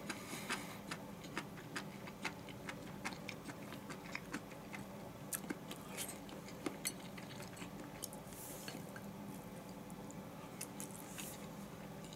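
Quiet eating sounds: irregular small clicks of wooden chopsticks against a bowl, and chewing as mushrooms and fried tofu over rice are eaten. The clicks come thickly at first and thin out in the second half, with a couple of soft breathy hisses near the end.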